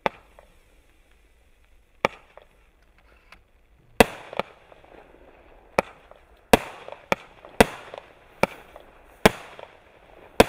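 Category 2 garden firework cake firing its shots: about ten sharp bangs at uneven intervals, coming faster in the second half.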